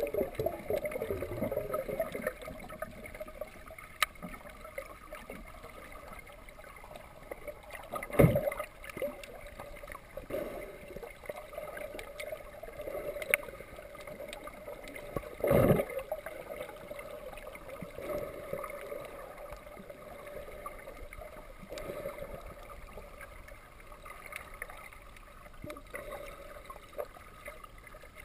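Underwater sound on a scuba dive: steady gurgling of water and exhaust bubbles with a constant low hum, scattered sharp clicks, and two louder short thuds about eight and sixteen seconds in.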